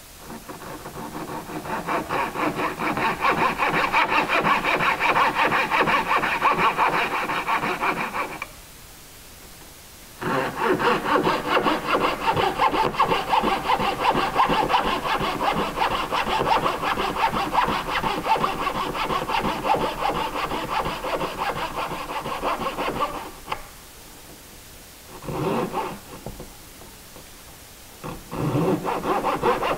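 Hand coping saw cutting a cope into the end of a primed wooden baseboard with quick back-and-forth strokes. The strokes come in runs: a long one, a short pause, a longer one, a few strokes after another pause, and a restart near the end.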